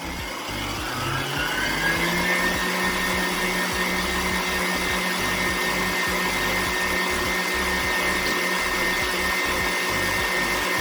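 Electric stand mixer whipping egg-white meringue while hot sugar syrup is poured in for boiled icing; its motor whirs, rises in pitch about a second in as the speed goes up, then runs steadily.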